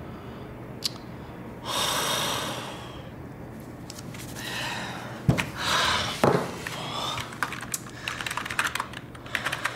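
A man breathing out heavily a few times, then typing rapidly on a computer keyboard from about seven seconds in, a quick patter of key clicks.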